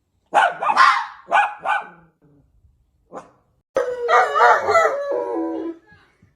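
Dog barking several times in quick succession, then one longer drawn-out call that drops in pitch near its end.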